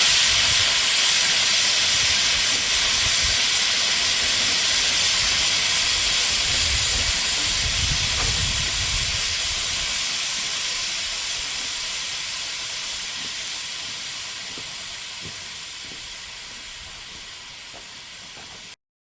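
Live steam model locomotive CGW 292 hissing steam steadily. The hiss slowly fades and then cuts off abruptly near the end.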